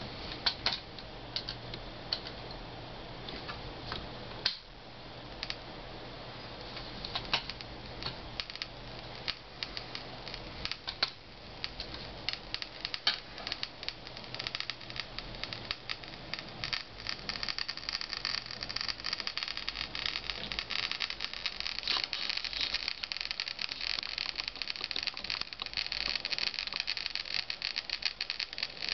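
Portable scintillation detector with a BC-408 plastic scintillator, its audio preamp clicking at random, one click per radiation pulse from a thorium rod. The clicks are sparse in the first half, then pick up into a dense, fast crackle from about halfway on as the count rate rises, over a steady hiss.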